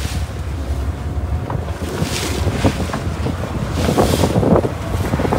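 Wind buffeting the microphone over the steady low drone of a boat's engine, with footsteps and knocks on metal-edged stair treads. Two louder rushes of wind come about two and four seconds in.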